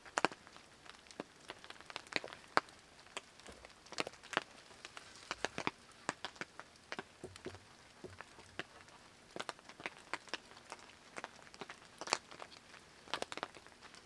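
Water drops dripping and tapping irregularly around the microphone: scattered sharp ticks, a few close together, none in a steady rhythm.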